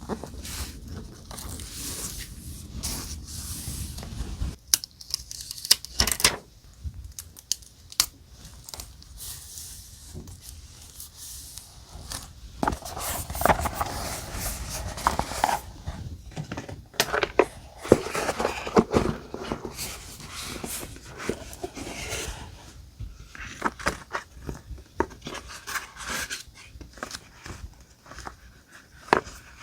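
Close-up paper handling while decorating a journal with die-cut papers: irregular rustling, scraping and sharp clicks, with short tearing or cutting sounds.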